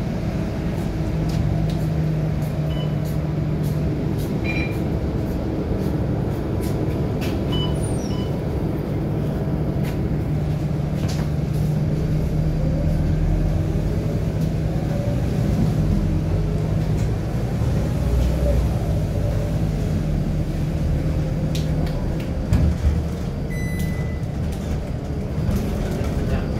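Scania K230UB city bus heard from inside the passenger cabin: its five-cylinder diesel engine runs with a steady low hum as the bus drives, over scattered fittings rattling. Near the end come a thump and a short high beep as the bus reaches a stop.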